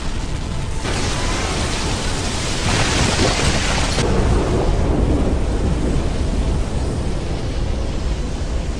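Anime sound effect of a massive shockwave explosion: a long, loud rumbling blast with a rushing hiss of debris, strongest about three to four seconds in.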